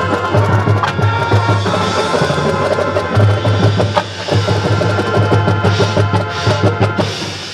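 A high school marching band playing, wind instruments over a drum and percussion section, growing quieter near the end.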